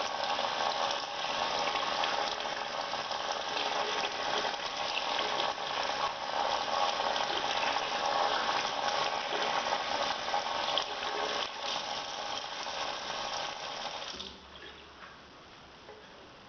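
Water running steadily from a tap over hands being washed, with small splashes, until it stops about 14 seconds in and only a faint background is left.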